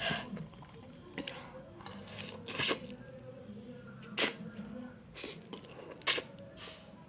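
A person eating fried instant noodles (Indomie goreng) close to the microphone: chewing with a few short, loud slurping or mouth noises, about four in all.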